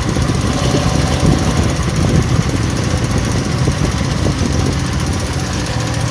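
A 170F single-cylinder four-stroke air-cooled petrol engine running steadily with a fast even beat, freshly rebuilt with a new crankshaft and connecting rod and running without its former knock.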